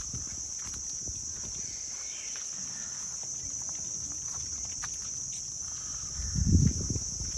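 A steady high-pitched drone of tropical insects, with a low rumble standing out about six and a half seconds in.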